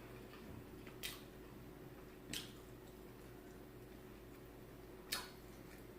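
Faint wet mouth sounds of someone eating a chicken sandwich: three short smacks, about a second in, a little past two seconds, and near the end.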